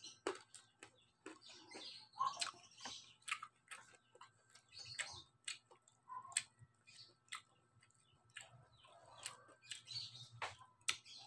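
Faint close-up eating sounds: the crisp crackling of deep-fried pork belly (lechon kawali) being bitten and chewed, a string of sharp irregular crunches and clicks over a faint steady low hum.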